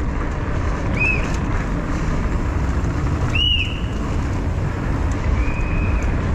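Steady wind rush on a helmet-mounted camera over the rumble of a downhill mountain bike rolling fast down the course, with three brief high-pitched calls over it.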